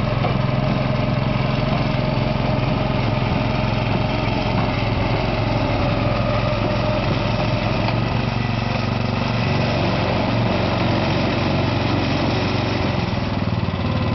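Sisis Hyderator turf aerator's small petrol engine running steadily, its note shifting slightly about eight seconds in.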